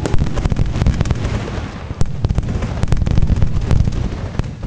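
Fireworks display: a rapid barrage of shell bursts with crackling and a continuous low rumble, and a sharp loud bang about two seconds in.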